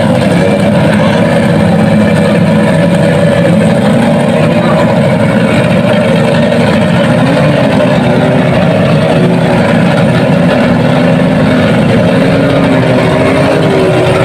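Several outboard motors on small racing boats running hard together at the start of a race, a loud continuous engine din in which the separate motors' pitches waver up and down.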